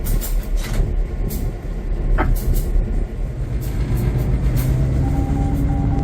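Inside the cab of an EMD SD9M diesel locomotive: a heavy low engine rumble with scattered clicks and rattles, and steady humming tones that come in about halfway through and hold to the end.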